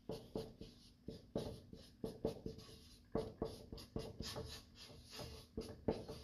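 Felt-tip marker writing letters on a large paper sheet: a run of short, irregular strokes, several a second.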